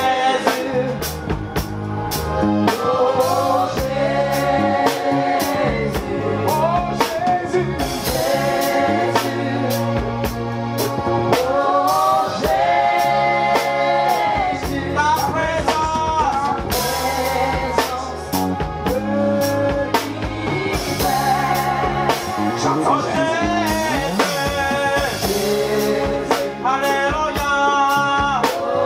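Live church band playing a gospel song with a drum kit keeping a steady beat, bass guitar and a singing voice.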